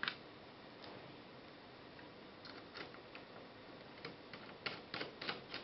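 Faint, sparse clicks and taps of a Raspberry Pi case's top plate and its small hardware being handled and fitted by hand. They start about two seconds in and come more often near the end.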